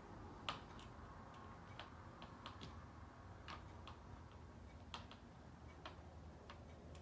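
Faint, irregular light clicks and taps of small metal parts being handled as a Trijicon RMR red dot is set onto a pistol slide's mounting plate; the sharpest click comes about half a second in.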